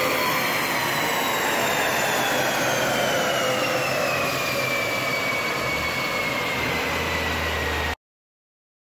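Steady, loud rush from a dyno cell's cooling fan and a VW New Beetle 1.8T on the rollers, with a whine that slowly falls in pitch as the drivetrain and dyno rollers wind down. A low hum comes in near the end, and the sound cuts off abruptly about eight seconds in.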